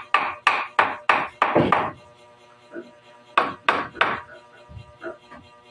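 Claw hammer striking a wooden table frame: about six quick blows, a pause of a second and a half, then three more.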